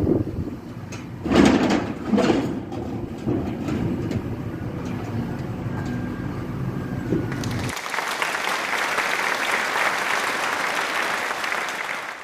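Backhoe engine running with loud crunching crashes of a house being broken up, about a second into the sound. About eight seconds in the sound cuts off suddenly to a steady hiss-like noise.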